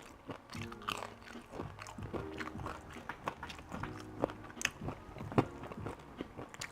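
A person chewing and biting breakfast food close to the microphone: irregular wet clicks and smacks of the mouth.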